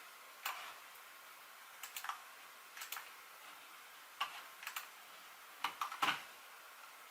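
Scattered light clicks and key taps from a computer mouse and keyboard, irregularly spaced and sometimes in quick pairs.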